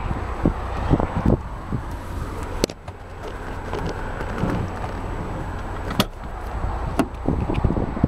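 Scattered knocks and clicks as a handheld camera and hand bump and brush against a car's rear seat and door frame, over a steady low outdoor rumble.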